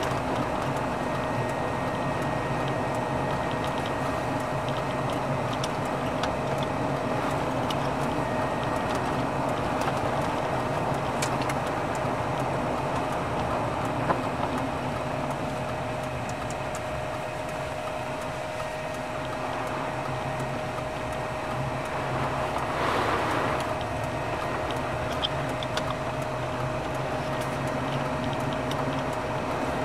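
Steady road and engine noise heard from inside a moving vehicle, with a constant faint hum. A short swell of rushing noise comes a little past the middle.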